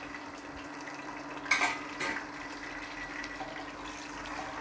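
Sliced onions sizzling in hot oil in an aluminium pressure cooker as they are stirred with a wooden spatula, with a sharp metallic clink about a second and a half in and a lighter one just after. A steady low hum runs underneath.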